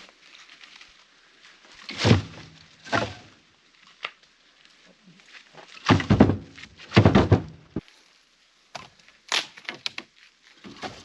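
Heavy wooden thunks of firewood being handled and struck: two strong knocks about two seconds in, two longer, rattling ones about six seconds in, and lighter knocks between.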